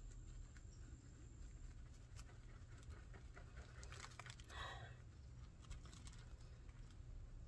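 Faint rustling and small crackles of hands working through potting soil and sweet potato roots, with one short huff of breath about halfway through.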